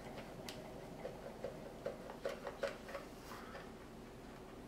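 Small irregular clicks and taps of a Torx screwdriver working screws out of the bottom of a Harman Kardon Invoke speaker, most of them in the first three seconds.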